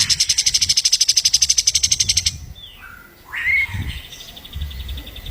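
Songbird singing a loud, rapid trill of high repeated notes, about fifteen a second, then after a short pause a quick rising whistle and a fainter, lower trill.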